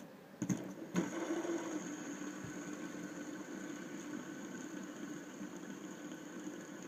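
A fidget spinner is flicked with a couple of clicks about a second in, then spins with a steady whir.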